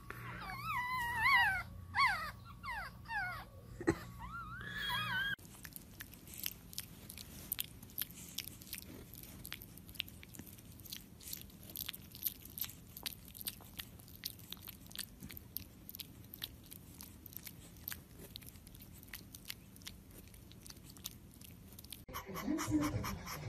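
Newborn pug puppies squeaking and whining, high wavering cries that rise and fall in pitch. About five seconds in this gives way to a pug puppy chewing on a chew stick: a long run of small irregular clicks and crunches.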